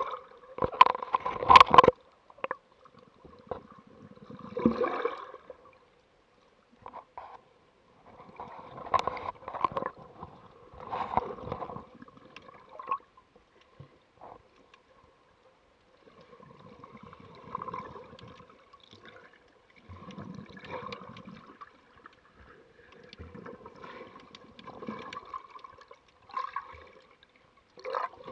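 Sea water sloshing and gurgling against a waterproof camera housing held at the waterline, muffled, in irregular surges every couple of seconds as small waves wash over it, with a faint steady hum underneath.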